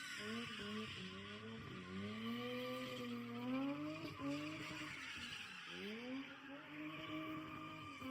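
Car engine accelerating hard, its pitch climbing in several steps and falling back between them, as at gear changes.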